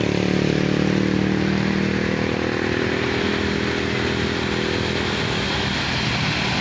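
A tour bus's diesel engine drones steadily past on an uphill grade, then fades after about four seconds into a wash of road noise.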